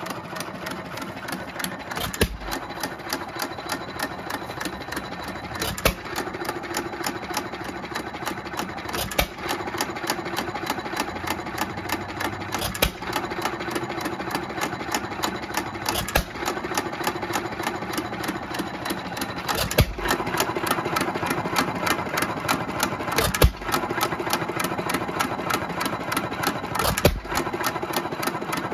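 Economy 2 1/2 HP hit-and-miss engine running unloaded on battery-and-coil ignition. It fires with a sharp bang about every three and a half seconds and coasts between firings, with a fast light clatter from its valve gear and mechanism in between.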